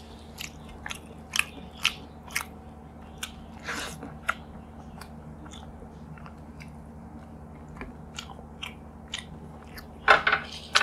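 Close-up chewing of hand-fed rice with scattered sharp mouth clicks and smacks. Just after ten seconds comes a louder crackle of crisp potato chips.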